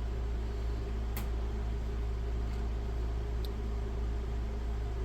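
Steady low background hum with a faint steady tone in it, and two faint clicks, about a second in and again about three and a half seconds in.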